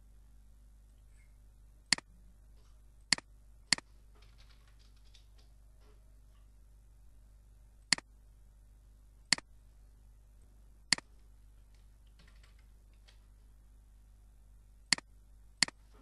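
Computer mouse clicking: eight sharp single clicks, irregularly spaced, several of them in pairs about half a second to a second apart. Faint keyboard typing runs between the clicks over a low steady hum.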